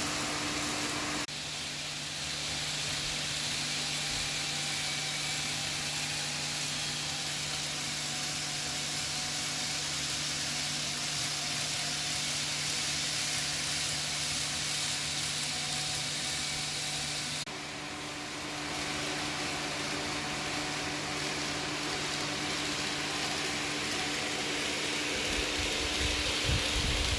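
N gauge model train running on its track: a steady hiss of wheels rolling, with a faint motor whine and a low hum. The sound changes abruptly about a second in and again past halfway. Low thumps build up near the end.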